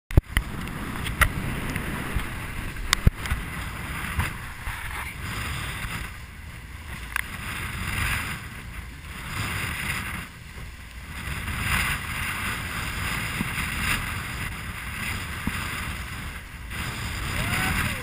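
Wind buffeting the microphone over seawater rushing and splashing against a catamaran's bow as it pounds through big waves, the rush swelling and easing every few seconds. A few sharp knocks come in the first three seconds.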